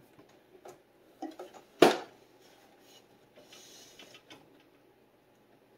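Handling noise: scattered small clicks and taps, with one sharp knock a little under two seconds in and a brief soft hiss near the middle.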